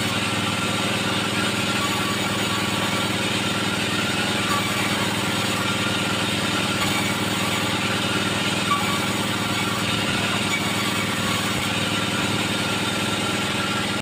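Sawmill log band saw and its drive motor running steadily, a constant mechanical drone with no cutting bursts or impacts standing out.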